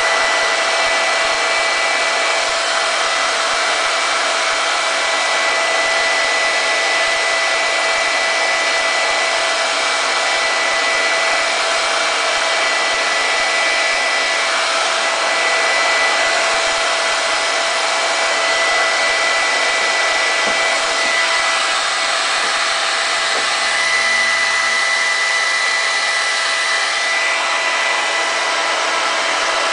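Handheld hair dryer running continuously at a constant setting: a steady rush of blown air with a thin, steady whine on top.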